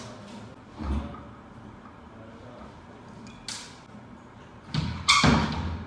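Knocks and clanks of a window air-conditioner fan motor being handled and taken apart on a workbench: a dull knock about a second in, a sharp click past the middle, and the loudest, a clatter of knocks and scraping near the end.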